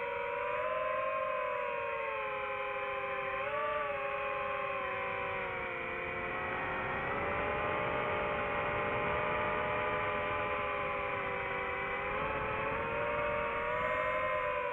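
FPV quadcopter's electric motors whining, several close pitches moving up and down together with the throttle. The pitch sinks in the middle and rises again near the end.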